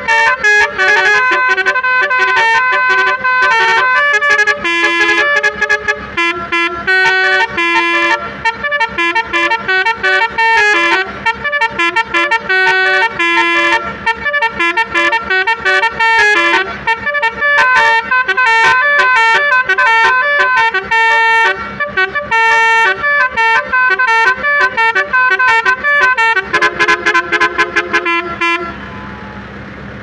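Basuri telolet horn on a tour bus, a multi-trumpet musical air horn, playing a fast tune of short, quickly changing notes. Near the end it holds one chord for about two seconds and then cuts off.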